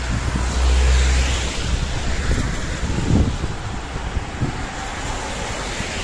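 Cars passing close by, one after another, their tyres hissing on wet asphalt. There is a short low thump about three seconds in.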